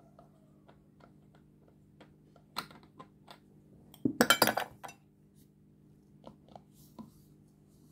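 Skincare bottles knocking and clinking against each other and a hard surface as one is put down and another picked up, with a quick burst of clinks about four seconds in and scattered light taps around it.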